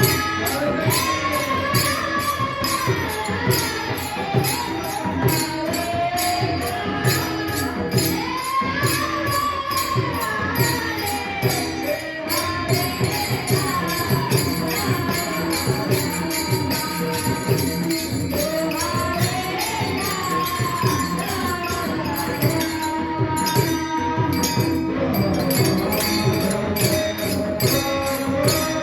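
Kirtan music: a sung devotional melody that rises and falls in long phrases. It runs over a fast, steady beat of small hand cymbals (taal), about four clashes a second, with mridang drum underneath.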